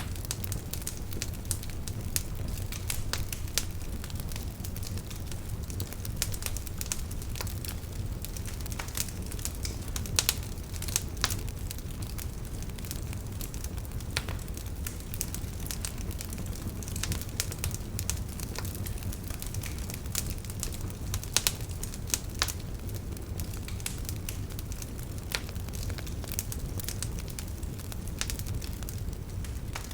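Campfire burning, with irregular sharp crackles and pops from the wood over a steady low rumble of the flames.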